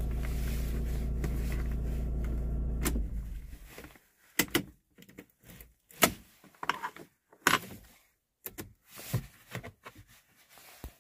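A vehicle engine idling steadily, switched off about three seconds in, then a series of separate sharp clacks and knocks.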